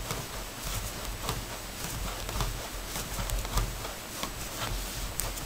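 Knitting needles clicking and tapping irregularly as stitches are worked by hand, over a low handling rumble.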